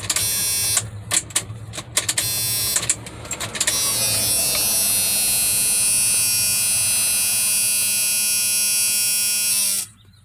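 Ignition key of a 1993 Dodge Power Ram 150 being switched on and off several times in quick succession, giving a string of short clicks and bursts. On the last switch to 'on', a steady electric warning buzzer sounds for about six seconds and then cuts off suddenly.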